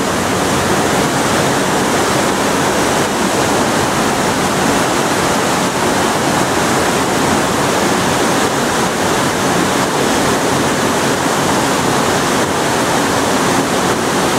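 Waterfall and stream water rushing over rocks: a loud, steady rush with no breaks.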